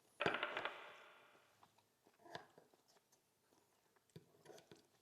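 Handling sounds at a meal table: a brief, rapid rattle about a quarter second in that fades over about a second, then a few faint clicks and taps.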